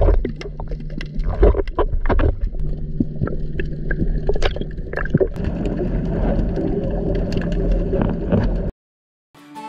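Underwater sound through a GoPro's waterproof housing: gurgling water and bubbles with a low rumble and scattered clicks. It cuts off suddenly near the end.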